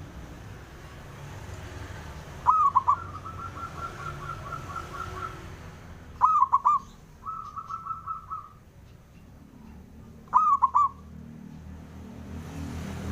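Male zebra dove (perkutut) cooing: three short rolling phrases about four seconds apart. The first two each run on into a fast trill of softer notes.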